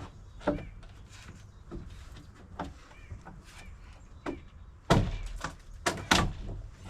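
Wooden deck boards being knocked loose during demolition: irregular knocks and thuds, the heaviest blows about five and six seconds in.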